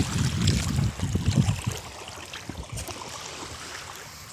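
Shallow water sloshing and splashing around a mesh net bag of small fish. The sound is loud and irregular for the first second or so, then settles to a quieter wash with scattered light clicks.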